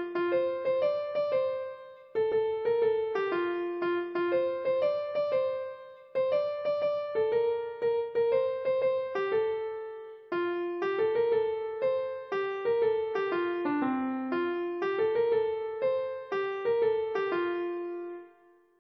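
Slow piano music: a melody of single struck notes that ring and fade, in phrases of about four seconds, dying away near the end.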